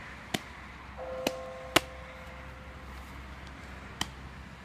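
Four short, sharp clicks, the loudest about two seconds in, with a faint steady tone in the background around the one-second mark.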